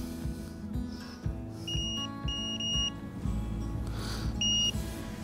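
Electronic carp bite alarm on a rod beeping: three short beeps in quick succession, then a single beep a couple of seconds later. It was left switched on and sounds while the rod is being set up. Background music plays underneath.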